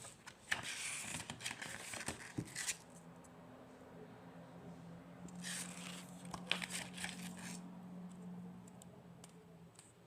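Packaging being torn and crinkled by hand in two bouts, the first about half a second in and the second around five and a half seconds in, with a faint low steady hum underneath from about three seconds in.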